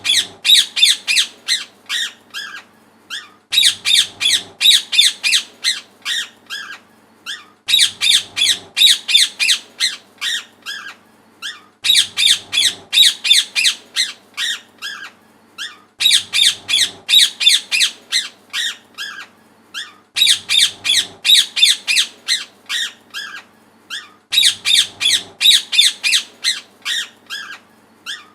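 A parrot calling loudly in quick runs of shrill chirps, several a second. The same phrase repeats about every four seconds, with short pauses between.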